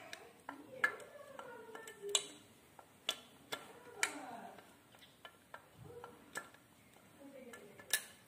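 Irregular sharp metallic clicks and ticks, a dozen or so, as pliers work on the metal housing of a Ka-band VSAT transceiver during disassembly.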